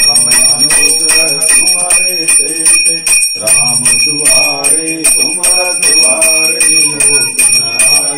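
A puja hand bell rung rapidly and continuously, about four to five strikes a second, its ringing held throughout. Voices chant along under the bell, pausing briefly a little past the middle.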